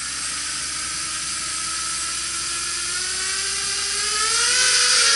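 Eachine Racer 250 quadcopter's 2204 2300KV brushless motors and propellers whining. The pitch rises slowly and the sound grows louder as the throttle is brought up.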